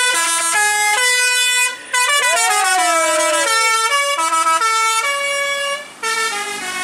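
Tour bus's basuri horn playing a melody of held, stepped notes, with a siren-like swooping slide about two to three seconds in. It breaks off briefly twice.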